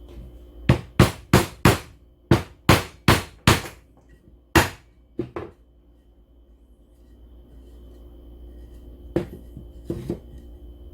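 Sharp knocks on wood, struck by hand: about eight quick strikes in the first few seconds, another one after a short pause, then a few lighter knocks near the end.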